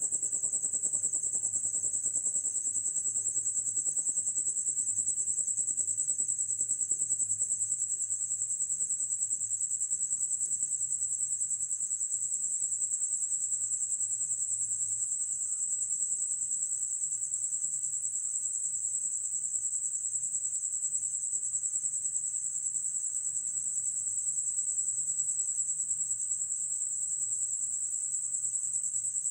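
Night insects, crickets, trilling in a continuous high-pitched chorus that holds steady without a break.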